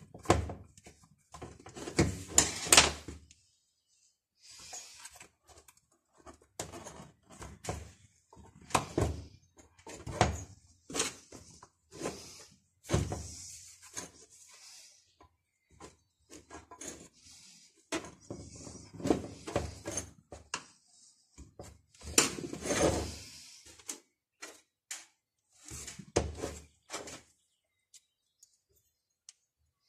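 Irregular clicks, knocks and short scrapes of hand tools and parts being handled on a chainsaw's plastic body, as it is worked on to replace its anti-vibration mounts.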